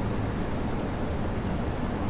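Steady rain over a low, continuous rumble of city traffic, with a few faint ticks of drips.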